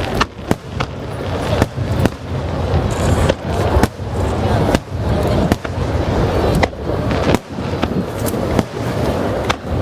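Aerial fireworks bursting in rapid, irregular succession: a dozen or so sharp bangs over a continuous rumble and crackle.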